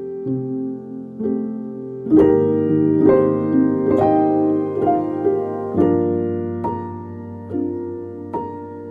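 Background music: a soft piano melody with chords, fuller from about two seconds in.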